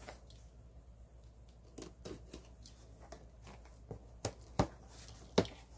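A parcel being cut open with a sharp blade, with its packaging handled: soft scrapes and rustling, then three sharp clicks in the last two seconds, the last the loudest.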